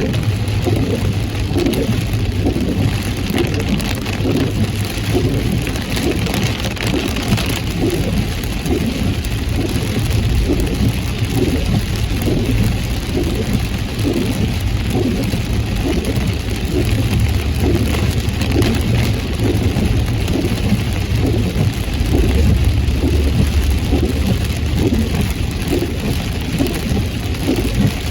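Heavy rain drumming steadily on a moving car, over a low rumble of road and engine that swells and eases.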